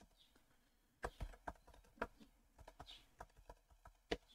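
Computer keyboard being typed on: a quick, irregular run of faint keystrokes starting about a second in, with one louder key strike near the end.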